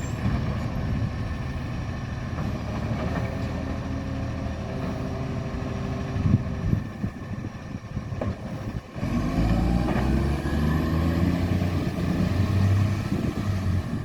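Garbage truck's diesel engine running with a very bad exhaust leak. About nine seconds in the sound dips briefly, then the engine revs up louder with its pitch rising.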